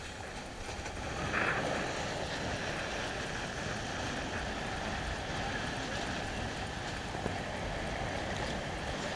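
Wind and water rushing past an AC45 catamaran sailing fast, a steady noisy rush that grows louder about a second in and then holds.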